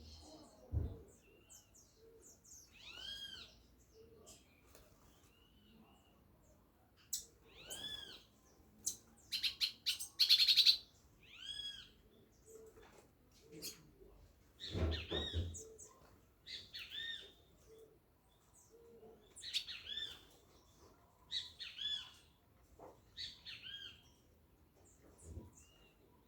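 Captive birds calling: a string of short arched squawks with ringing overtones, one or two at a time with gaps between, and a quick chattering run about ten seconds in. A low thud sounds about fifteen seconds in.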